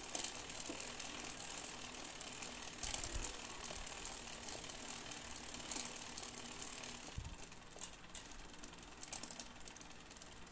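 Mechanical clicking and rattling, like a ratchet or gears running, with louder bursts of clicks every few seconds and a couple of low thumps.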